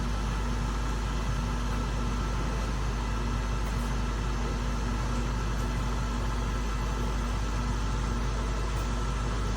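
Steady machine running noise, a constant hum with a deep rumble and a few steady tones, unchanging throughout.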